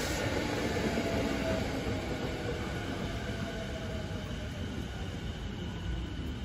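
Joban Line commuter electric train rolling away along the track, its wheel and running noise slowly fading.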